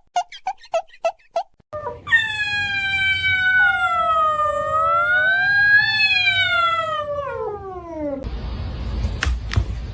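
A cat yowling: one long drawn-out call of about six seconds that sinks, rises again and falls away at the end. It comes after a quick run of short high pips, about five a second, and is followed by a few sharp clicks over a hiss near the end.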